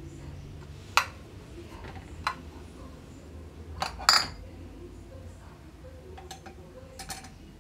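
Glassware being handled: glass Petri dishes and lab tubes clinking and tapping as they are set down and moved, in a handful of sharp separate clicks with the loudest about four seconds in, over a low steady hum.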